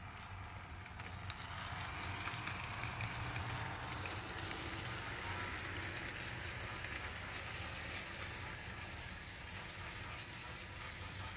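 HO scale model diesel switcher (Bachmann Alco S2) running on track with three grain cars: a steady whir of the small motor and rolling wheels, with scattered light clicks as the wheels pass over the rails. It grows louder over the first couple of seconds, then holds steady.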